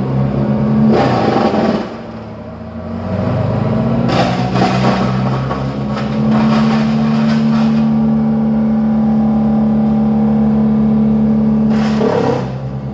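Two-stroke chainsaw running, easing back for a moment about two seconds in, then revving up again and held at a steady high speed before easing off near the end.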